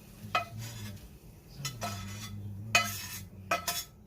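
Metal utensil scraping and clinking against a cast iron skillet, about five sharp strokes with a brief metallic ring, as food is scooped out of the pan.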